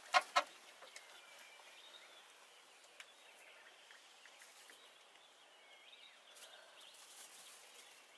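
Quiet outdoor bush ambience with faint, scattered bird chirps, after two short sharp sounds right at the start.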